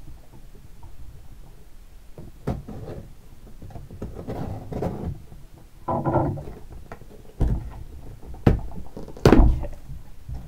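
A cardboard shipping box being opened by hand: a knife slitting the packing tape, then rustling and scraping as the flaps are pulled back. Several dull thumps against the table, the loudest in the second half.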